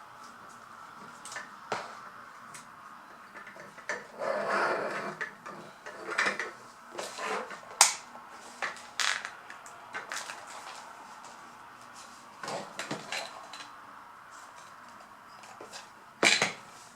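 Small plastic toy pieces and packaging being handled: irregular clicks and taps with brief rustles, the sharpest clicks about eight seconds in and near the end.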